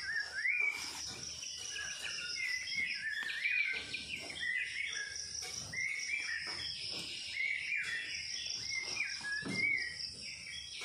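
Small birds chirping over and over in short calls that rise and fall, over a steady high-pitched drone of crickets or other insects.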